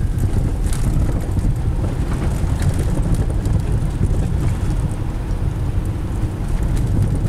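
Steady low rumble of a car driving slowly, heard from inside the cabin: tyre and engine noise.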